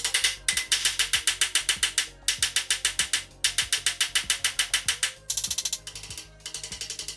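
A hammer striking the head of a steel bolt over and over to drive a control arm bushing sleeve into a steel frame bracket. The blows come in quick runs of several strikes a second, broken by short pauses.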